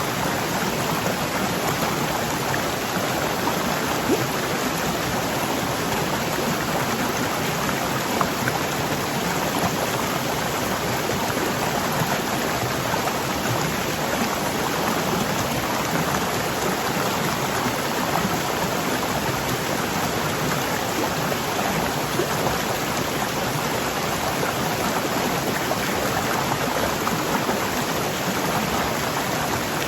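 Waterfall rushing water: a steady, dense hiss of falling and splashing water.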